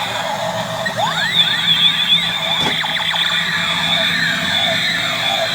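Electronic sound effects from a battery-powered toy robot: a steady high whine with a flurry of rising and falling pitch sweeps about a second in, like a toy's laser or siren effects.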